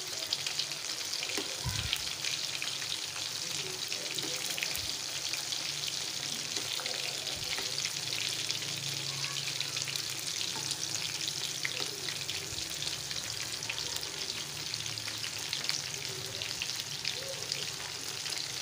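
Battered chicken pieces deep-frying in hot oil in a steel pan: a steady sizzle dense with fine crackles, while a metal spoon turns the pieces, with a soft knock about two seconds in.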